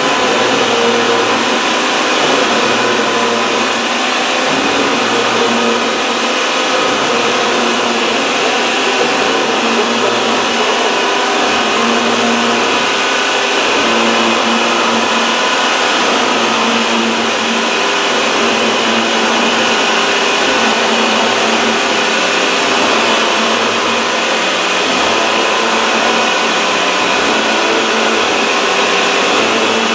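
Hyupshin Drill Master gantry drilling machine at work, its spindle head running under a spray of coolant: a loud, steady mechanical whir with several steady tones through it.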